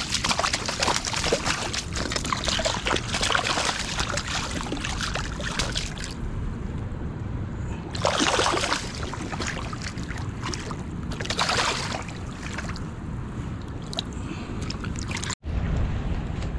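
Running river water, a steady rushing noise with two louder surges about eight and eleven seconds in.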